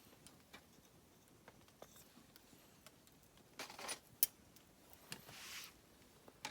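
Faint, scattered clicks and rustles of small objects being handled, with a sharper click about four seconds in and a short hiss shortly after.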